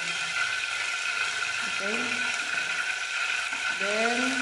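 Cooking oil crackling in a steel pot on a gas burner, steadily, because of the little water mixed into the oil.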